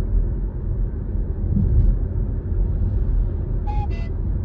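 Steady low road and tyre rumble inside a car cruising at about 60 km/h, with a short beep near the end.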